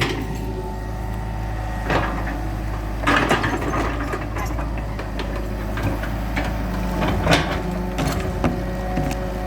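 Hitachi EX100-2 hydraulic excavator's diesel engine running steadily, with several sharp knocks and clanks.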